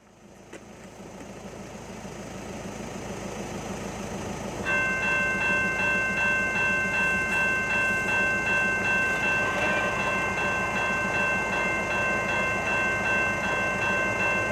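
Railroad crossing warning bell starts about five seconds in and rings on steadily, about two strokes a second, as the crossing signals activate. It sits over a low steady rumble that fades up at the start.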